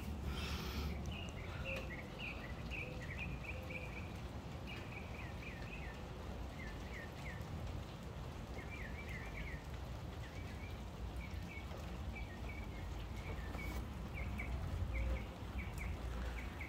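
Light rain falling with a low steady rumble, while birds chirp repeatedly in short high notes.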